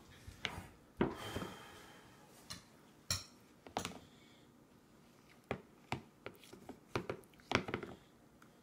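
Scattered light clicks and knocks of a toddler's bowl and plastic spoon on a high-chair tray as she eats, about a dozen irregular taps that stop near the end.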